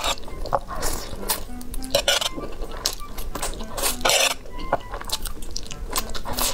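Curly noodles slurped from a fork and chewed in repeated short, wet bursts, with light clinks of the fork on the tray. Background music plays throughout.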